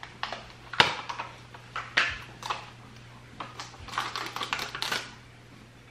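Irregular clusters of light taps and clicks as cocoa powder is tapped and shaken out of a plastic container into a measuring cup.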